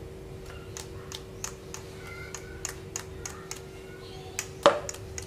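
Thick blended egg-and-spice paste being poured from a plastic blender jar into a plastic bowl of crushed tofu, with a run of light clicks and taps from the jar and ladle. There is one louder knock near the end.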